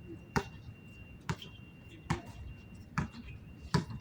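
Basketball being dribbled on a court: five sharp bounces at an even pace, a little under one a second.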